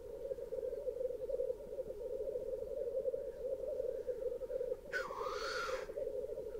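Black grouse at the lek: a continuous bubbling, cooing song (rookooing), with one hissing call lasting about a second, about five seconds in.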